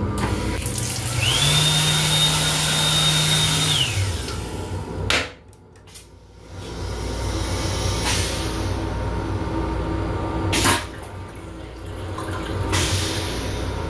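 The restroom's touchless washbasin unit (dryer, faucet and soap in one) runs for a few seconds, its motor whining up, holding steady and winding down under a rushing hiss. Then the toilet flushes, with a sharp click about five seconds in, a hiss building up, and another sharp click near the end.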